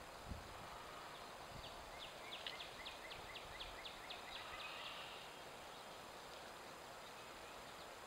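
A small songbird singing a fast trill of short, repeated down-slurred notes, about five a second for some three seconds, starting a couple of seconds in, over steady outdoor hiss. A few faint low thumps near the start.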